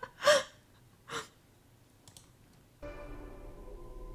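A person's short gasp and a breath out, then a pause; nearly three seconds in, quiet background music with steady held low notes comes in.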